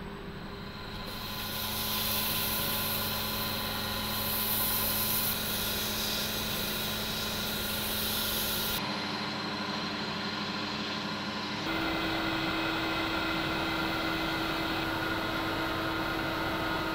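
Laguna 18|36 wood lathe running at a steady speed, a constant hum with a high whine, while a hand sands and then wipes the spinning resin-coated mug, adding a hiss. The hum and hiss shift suddenly about 9 and 12 seconds in.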